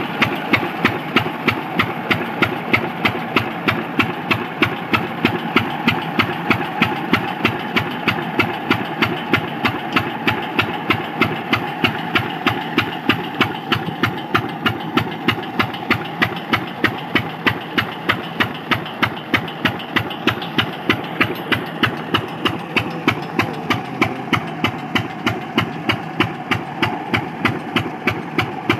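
Single-cylinder stationary diesel engine with flywheels running a water pump, chugging with a steady, even beat of several puffs a second.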